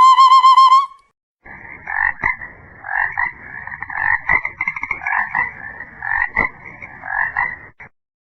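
Frog croaking: rough, pulsed calls repeated about once a second for several seconds, stopping just before the end. It is preceded in the first second by the high, pitched tail of a synthetic-voice ringtone.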